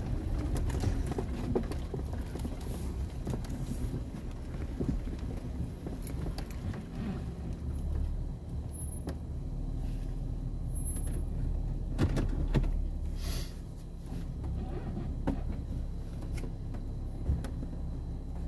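A 4x4's engine and drivetrain rumbling low and steady, heard from inside the cabin as it crawls along a rough dirt trail, with scattered short knocks and rattles as it rolls over bumps.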